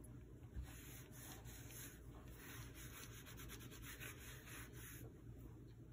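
Faint rubbing of a paper towel against paper, a quick run of scratchy strokes in two stretches.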